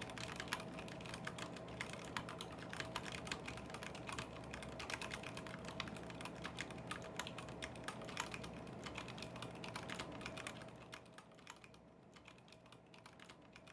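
Fast typing on a KBD75v2 mechanical keyboard with Zealios v2 78g tactile switches, an aluminium plate with foam and PBT keycaps: a dense run of keystroke clacks. Near the end the typing thins out to fewer, quieter keystrokes.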